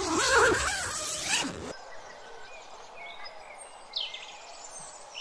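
Tent door zipper pulled open in one rasping run of under two seconds that cuts off abruptly. It is followed by quieter outdoor background with a few short bird chirps.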